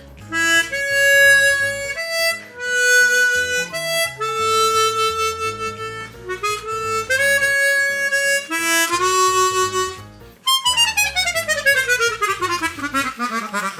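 Hohner Super 64 chromatic harmonica being played: a series of held single notes, then near the end a quick run of notes falling steadily in pitch. The player judges this harmonica leaky, losing air in the middle and low registers.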